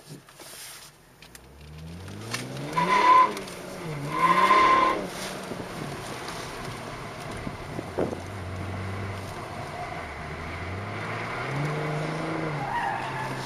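Car engine heard from inside the cabin, accelerating hard from a standing start with its pitch rising twice, while the tyres squeal sharply twice a few seconds in, the loudest sounds. The engine then runs steadier and revs up and back down again near the end as the car works through the autocross course.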